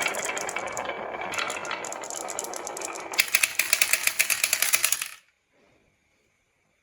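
Marbles rolling and clattering down a wooden HABA marble run. About three seconds in, the rolling turns into a fast run of sharp clicks, about nine a second, then stops suddenly.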